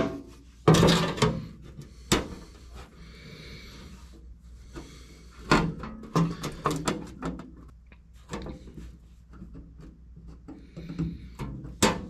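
A patch panel being lifted out of a truck's sheet-metal floor corner and fitted back in: a series of sharp knocks and scrapes, the loudest about a second in and again near the end.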